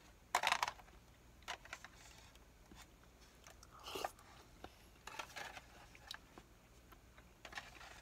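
Close-up eating sounds of a man eating yosenabe hot pot: chewing and biting in short, separate bursts, with a slurp of broth from the foil tray about four seconds in.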